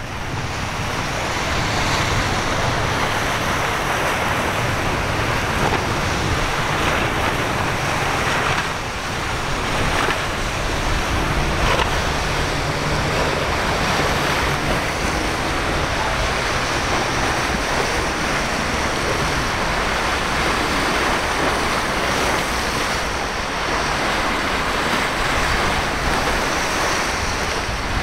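Rough surf and breaking waves with wind buffeting the microphone, and outboard engines of boats running through the chop underneath.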